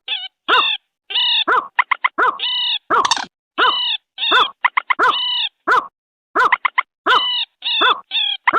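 Bird-lure recording of rail calls: short, arched notes repeated over and over, some in quick runs of three or four and some held a little longer, played back loudly.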